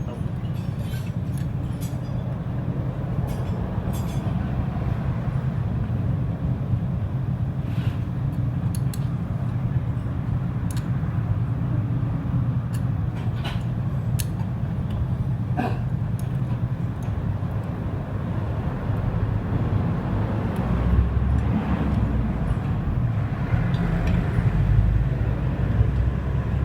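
Steady low mechanical rumble with scattered light metallic clicks and taps; the rumble grows heavier about three-quarters of the way through.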